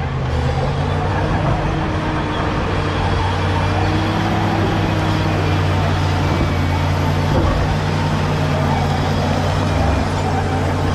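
Caterpillar D7G bulldozer's diesel engine running steadily.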